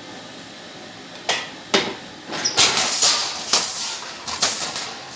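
A run of sharp knocks and clanks from thin galvanized sheet steel being handled and worked: two single knocks early on, then a dense clatter of strikes from about two and a half to four and a half seconds in.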